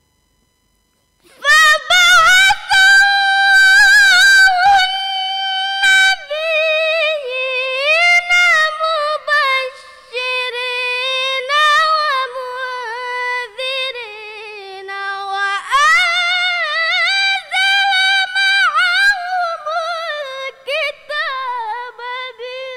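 A girl reciting the Qur'an in the melodic tilawah style: long, high held notes with ornamented runs. The recitation starts about a second in and goes on in phrases with short pauses for breath.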